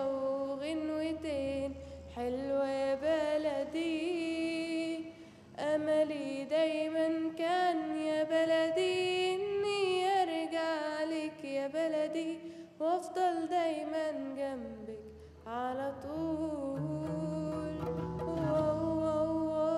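Arabic song: a single singer holding long, wavering melodic phrases over soft instrumental accompaniment, the voice sliding down near the end of one phrase.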